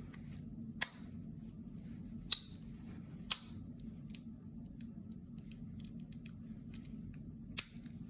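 Sharp metallic clicks of an 84 mm Victorinox Swiss Army pocket knife being handled, its blades and tools snapping open and shut: four louder clicks spread over several seconds, with faint ticks between.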